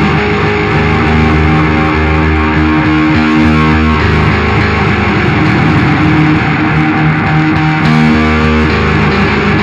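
A band playing an instrumental passage of a song, led by guitar, with sustained chords over a steady low bass line and no singing.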